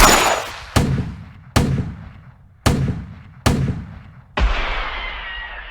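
Six single gunshots, roughly one a second, each dying away in its own echo. The last shot has a longer tail with a ringing tone that slowly falls in pitch.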